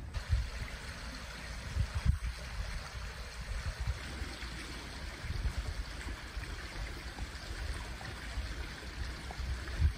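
Flooded meltwater river running steadily past broken slabs of ice, with an uneven low rumble underneath.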